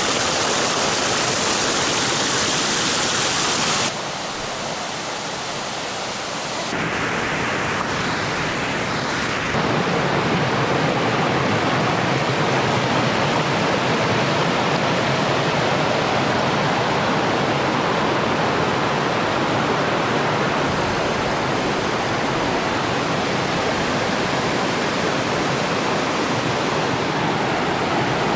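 Steady rushing of a waterfall, a dense hiss of falling water. Its tone and loudness change abruptly about four, seven and ten seconds in.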